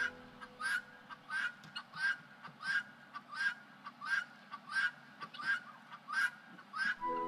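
A bird calling over and over, about eleven short, evenly spaced calls, roughly one and a half a second.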